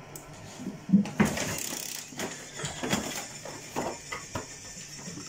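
Two sharp thuds close together about a second in, followed by scattered lighter knocks and rustling.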